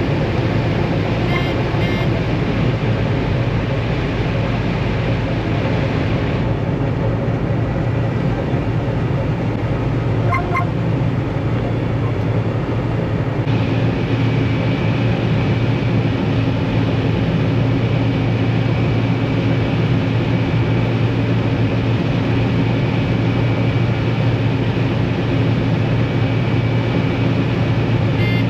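Combine harvester running with a steady low drone, with a few short electronic beeps.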